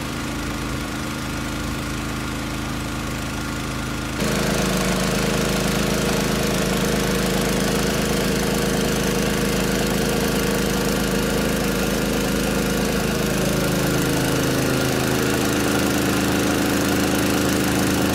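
Small engine of a truck-mounted pesticide sprayer pump running steadily while a hose sprays the pine trees. It gets suddenly louder about four seconds in, and its pitch sags slightly later on.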